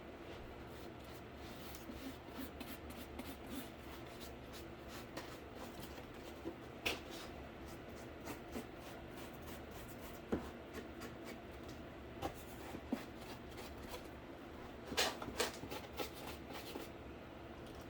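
Paint being worked onto a cardboard case: soft rubbing and scraping strokes on cardboard, with a few sharper clicks and taps, the loudest a cluster near the end.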